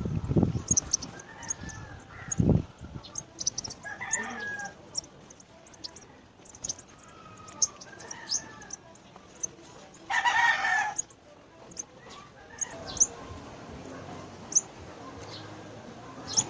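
Chickens: a stream of short, high chick peeps, with a mother hen's calls among them and one loud, harsh call about ten seconds in. There is a low thump about two and a half seconds in.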